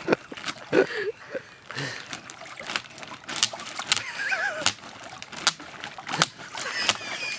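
A dog wading in a shallow vinyl frame pool, water splashing and sloshing irregularly around its legs as it bites and tugs at the pool's wall.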